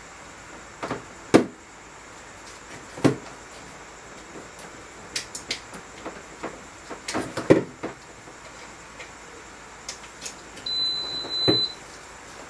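Irregular knocks and clatter of equipment being handled around a brewing pot, the loudest about a second and a half in and a quick cluster about halfway through. Near the end a short, high electronic beep sounds for about a second.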